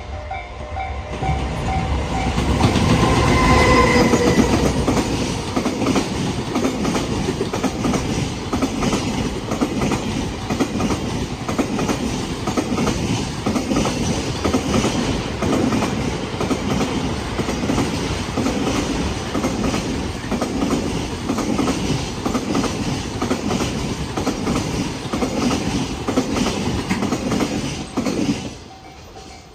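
Freight train passing close by, its wagon wheels beating a steady, loud clickety-clack over the rail joints. A brief pitched tone sounds about three seconds in as the head of the train goes by. The clatter cuts off sharply near the end as the last wagon passes.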